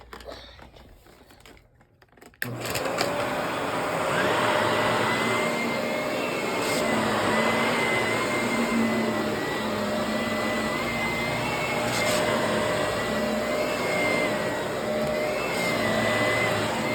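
Vacuum cleaner switched on about two seconds in, then running steadily on carpet with a high whine over its motor hum, the pitch wavering slightly as it is worked back and forth.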